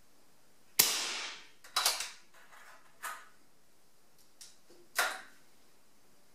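A PCP air rifle fires with a sharp crack about a second in, followed by a few quicker clacks and a click, and another loud sharp crack about five seconds in.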